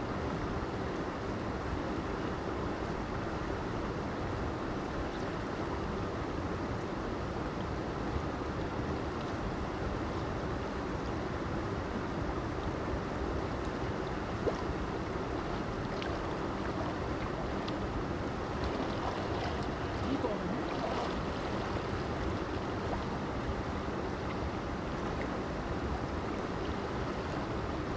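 Mountain creek rushing over rocks, a steady, even noise of fast-flowing water, with a few faint clicks in the second half.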